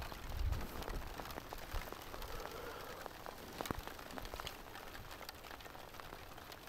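Light rain: scattered raindrops tick on the camera over a faint, even hiss, with a brief low rush of wind on the microphone at the start.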